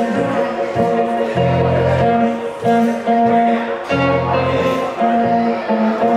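A live blues duo on hollow-body electric guitar and keyboard plays an instrumental passage with no singing: held chords step from note to note over recurring low sustained notes.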